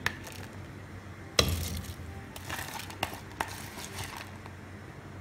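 Washed moong and masoor lentils tipped into the water in a pressure-cooker pot. There is one loud knock against the pot about one and a half seconds in, then a few lighter clinks.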